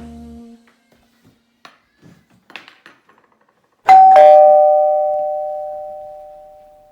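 Two-tone chime doorbell ringing once, a high 'ding' then a lower 'dong' a moment later, both tones ringing out slowly over about three seconds.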